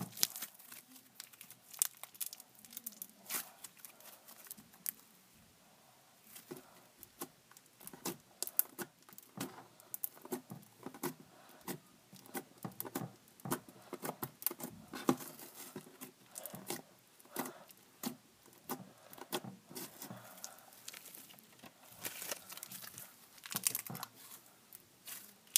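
Fingers poking and squeezing slime, giving a dense, irregular run of short clicks.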